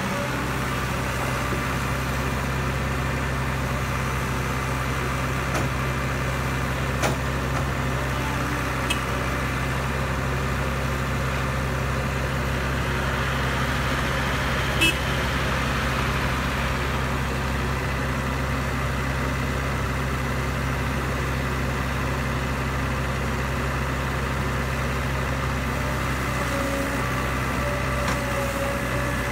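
CAT E120B hydraulic excavator's diesel engine running steadily with a deep, even hum. A few sharp knocks come through, and about halfway in a bucketful of soil pours into the steel bed of a dump truck with a rushing hiss and a clank.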